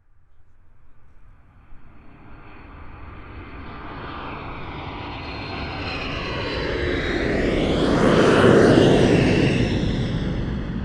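An aeroplane flying overhead: the engine noise grows steadily from faint, is loudest about eight and a half seconds in as it passes over, then begins to fade.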